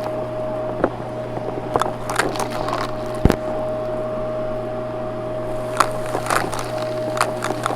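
Vacuum cleaner running steadily, a constant hum with a steady whine, with scattered clicks and crackles and one sharp knock just after three seconds in.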